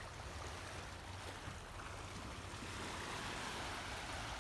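Small sea waves washing onto a sandy, rocky shore in a steady hiss, with a steady low rumble of wind on the microphone underneath.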